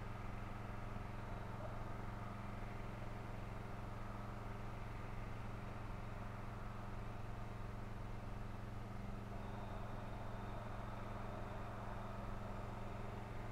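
Quiet, steady low hum of outdoor background noise, unchanging throughout, with no distinct events.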